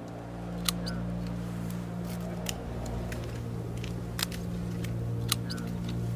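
Hand-held harvest secateurs snipping grape bunches from the vine: a sharp snip about every second or so, over a steady low hum.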